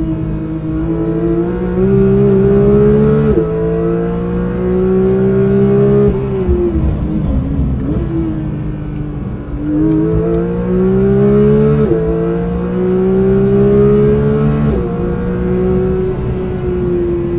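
Porsche 992 GT3's 4.0-litre naturally aspirated flat-six under hard acceleration, heard from inside the cabin. Its pitch climbs and drops sharply at each upshift, about three, twelve and fifteen seconds in. Around six seconds in the revs fall away and waver for a few seconds before climbing again.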